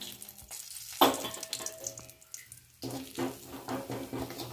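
Ground spice powders sizzling in hot oil in a metal pan, with a sudden louder burst of sizzle about a second in that fades, then a crackling fry as a wooden spatula stirs them.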